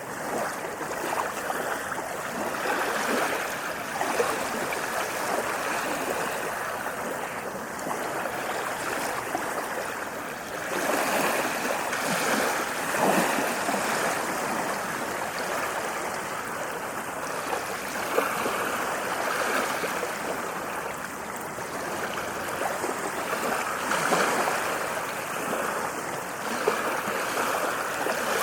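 Ocean waves washing onto a sandy beach: a continuous rush of surf that swells and eases every several seconds.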